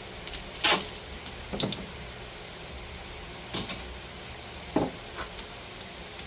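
A handful of scattered knocks and clunks, about five spread unevenly across the few seconds, from handling a 1/2-inch plywood board with a wire fur stretcher taped onto it.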